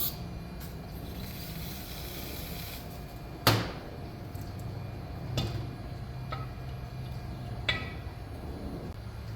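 Three sharp knocks of engine parts and tools being handled on a shop bench, the loudest about three and a half seconds in, over a steady low hum.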